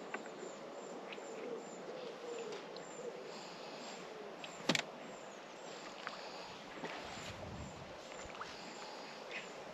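Quiet lakeside ambience with faint bird calls, a few small ticks and one sharp click or knock about halfway through.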